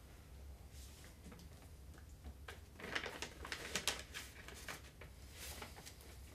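Paper rustling as sheets are handled and leafed through, with a cluster of crisp rustles and crinkles in the middle, over a faint steady room hum.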